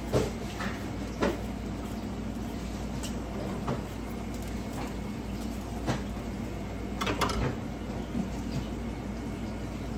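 Scattered short knocks and clinks of kitchen utensils and cookware during food prep at the stove, over a steady low hum. There is a knock about a second in, a few more later, and a quick cluster of clatters past the middle.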